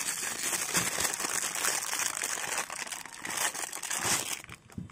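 Clear plastic packing bag crinkling as fingers pinch and pull it open, a dense rustle that dies down near the end.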